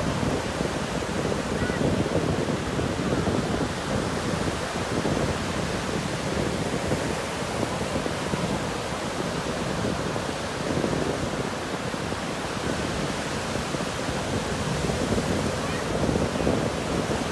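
Ocean surf breaking and washing up the sand, a continuous rush that swells and eases with the waves, with wind buffeting the microphone.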